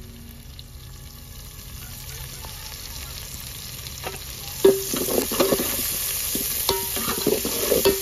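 Sliced onions and green vegetables frying in oil in an aluminium pot, sizzling. About halfway through the sizzle gets louder, and a metal spatula scrapes and knocks against the pot as the food is stirred.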